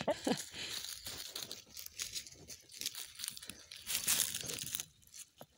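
Dry leaves and ground litter rustling and crackling in irregular, crunchy bursts, with a hen's cluck trailing off right at the start.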